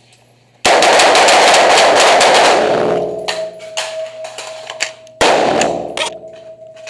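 AR-15 rifles firing on an indoor range, several shooters at once. A dense string of rapid shots starts about half a second in and thins to scattered shots, then another quick string of shots comes about five seconds in, with a few more after it.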